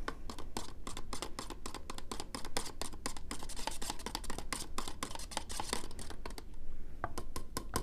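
A spoon stirring a thick yogurt mixture in a container, with a quick, irregular run of scraping and small clicks against the container's sides.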